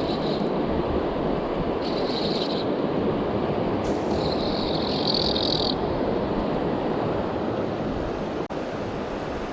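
Steady rush of flowing river water. Two short high-pitched buzzing sounds come about two seconds and four seconds in, the second lasting nearly two seconds.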